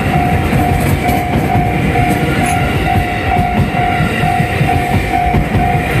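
Japanese level-crossing warning bell clanging in a steady rhythm, about twice a second, over the low rumble of a JR 221 series electric train passing over the crossing.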